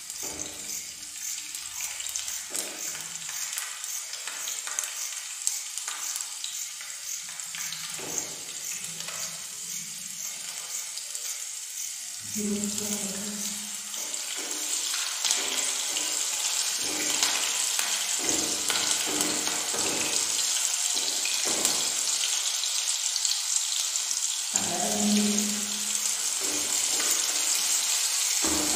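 Rice oil sizzling in a small nonstick frying pan as garlic, cumin seeds and green chillies fry, stirred with a silicone spatula. The sizzle grows louder about halfway through, as more chopped vegetables go into the pan.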